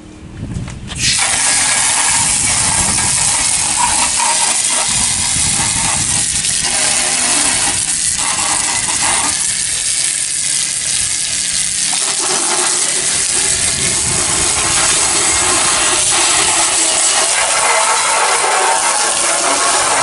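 Garden hose spray nozzle shooting a jet of water onto metal and plastic parts, a steady loud hiss that starts suddenly about a second in.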